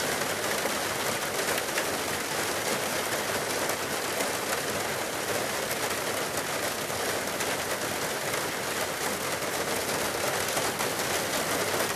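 Debris flow: a steady rushing noise of water carrying rock, with fine clicking of stones knocking together in it.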